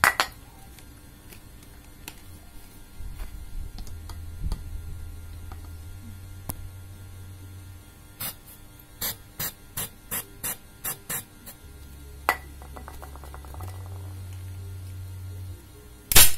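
Butane gas canister squirting gas into a homemade PVC toy gun in about eight short hisses, each a press of the nozzle, with the can nearly empty. A click follows a second later, then near the end the gun fires with a sharp bang that is weak, typical of a charge from a can that is running out. A sharp knock also sounds at the very start.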